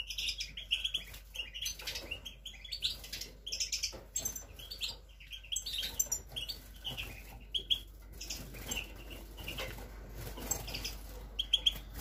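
Caged goldfinches and siskins giving short, high chirps again and again, with soft wing flutters and hops on the perches in between; the birds are nervous of the phone filming them.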